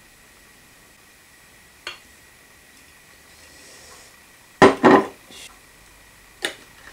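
A glass jar set down on a wooden table: a loud double knock a little past halfway, with a light click before it and another sharp clack near the end as kitchen utensils are put down.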